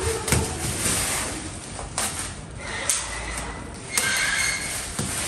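Heavy black plastic wrapping rustling and crinkling as a taped bundle of clothing is pulled open, with a few sharp crackles and a thin high squeak about four seconds in.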